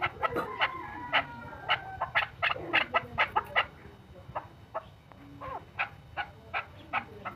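Male chukar partridge calling: a fast run of sharp 'chuk' notes, about three a second, for the first half, then after a short pause single notes at wider intervals.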